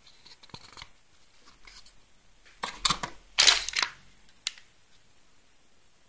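Clear plastic packaging bag crinkling and rustling as a phone charger is pulled out of it, with two loud bursts of crinkling around the middle and a sharp click shortly after.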